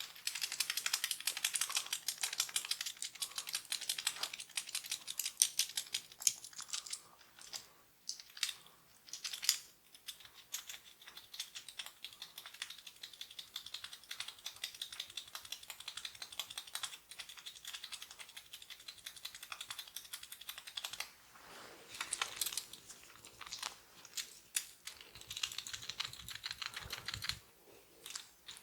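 Oiled hands massaging the neck and scalp close to the microphone: a dense, rapid crackling and clicking of slick skin and hair under the fingers, with a few sharper snaps.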